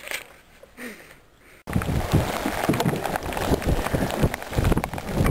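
A second and a half of quiet room tone, then strong gusty wind buffeting the microphone on an open boat cuts in suddenly and carries on.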